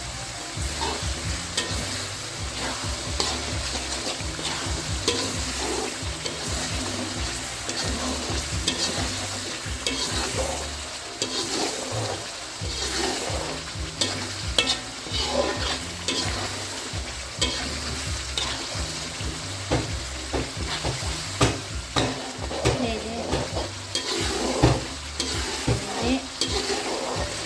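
Chicken sizzling as it fries in a pan, with a utensil stirring it and scraping and clicking against the pan again and again.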